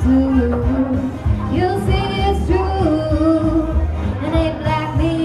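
A woman singing into a microphone over a pop backing track with a steady bass beat, played through a PA system.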